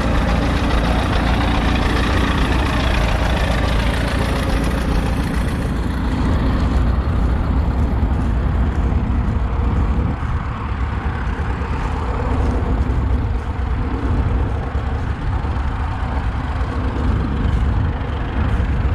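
Vintage tractor engine running steadily, a low, continuous engine note.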